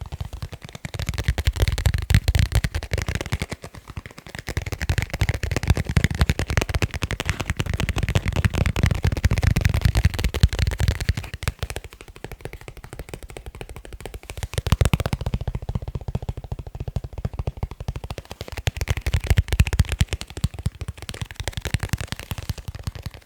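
Fingers or nails tapping quickly on leather cases, a dense run of rapid taps with a deep thud under them, easing off briefly a few times.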